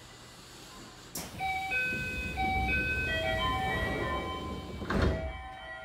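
The sliding passenger doors of a Toei 6300-series subway car closing at a station, starting about a second in, while a short electronic chime melody of stepped notes plays. A thud about five seconds in, then the sound fades.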